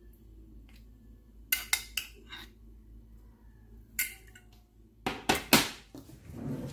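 Metal spoon clinking against a glass dish and a ceramic plate while salad is scooped out and served. There are a few sharp clinks about one and a half to two seconds in, one at four seconds, and a louder cluster of clinks and scrapes just after five seconds.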